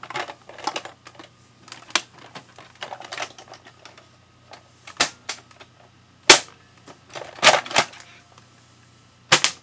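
Nerf Vulcan blaster being worked: a run of scattered plastic clicks and clacks, with the loudest sharp snap a little past six seconds, then a quick pair of snaps near eight seconds and another pair near the end.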